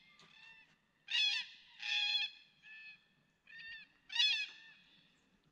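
Birds calling: a run of about six short calls spread over a few seconds, some louder than others.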